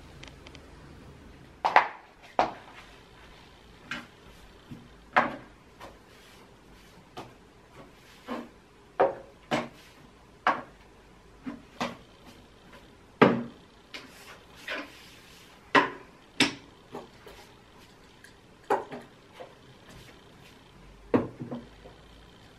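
Glass and ceramic ornaments, a vase, a perfume bottle and a candle jar among them, being picked up and set back down one after another on a nightstand top while it is dusted: a string of short clinks and knocks, about one a second, starting a couple of seconds in.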